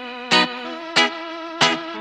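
Background music led by a guitar with effects: held, wavering chords with a sharp struck accent about every two-thirds of a second.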